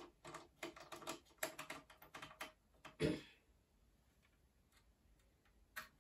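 Small plastic and metal clicks as screws are fitted and driven with a magnetic screwdriver into an HP T420 thin client's case during reassembly: a quick irregular run of ticks, then one louder knock about three seconds in.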